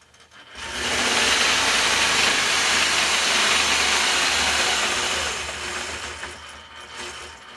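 Longarm quilting machine running and stitching. It starts about half a second in, runs steadily, and eases off after about five seconds.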